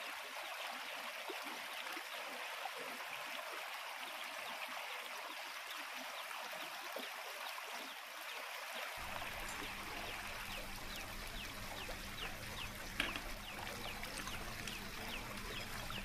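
A metal spoon stirring a crisp, dry bhel mix of fried namkeen and chana in a ceramic bowl. It makes a steady crackly rustling, with light clicks that grow more frequent in the second half and one sharper click near the end.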